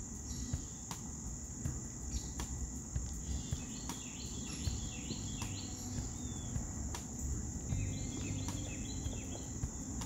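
Crickets trilling in one steady, high-pitched note throughout, with two brief runs of short bird chirps over a low outdoor background hum.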